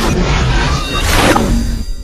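Logo-reveal intro music with whoosh effects: a loud sweeping swell builds about a second in, then the high end drops away near the end, leaving a low hum.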